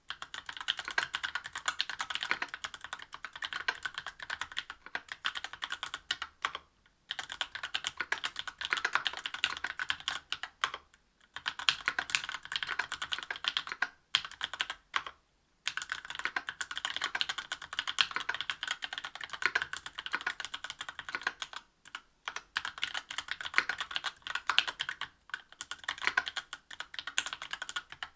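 Fast typing on a Linworks Special Dolphin mechanical keyboard with stock, unlubricated Tecsee Oreo 63.5 g linear switches, an aluminium plate and GMK keycaps: a rapid stream of key clacks, broken by a few short pauses.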